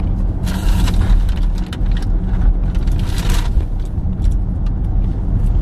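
Steady low rumble of a car cabin on the move, with two short bursts of rustling hiss, about half a second in and again around three seconds in, and a few light clicks.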